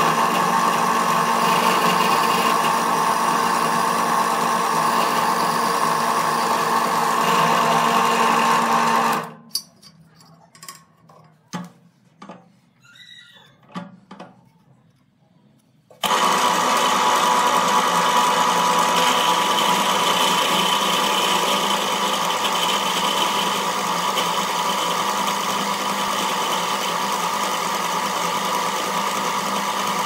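Drill press running and boring a hole through a flat metal knife part: a steady motor hum with fixed tones. It stops abruptly about nine seconds in, leaving a few light clicks and knocks, then starts again about sixteen seconds in and keeps drilling.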